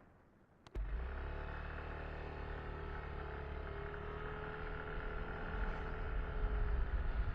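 Yamaha Tricity 155 three-wheeled scooter's single-cylinder engine running steadily. It cuts in abruptly after a click a little under a second in.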